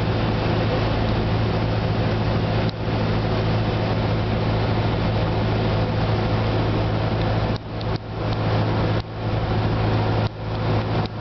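Cessna 172 Skyhawk's engine and propeller droning steadily in the cockpit on final approach, dipping briefly in level a few times.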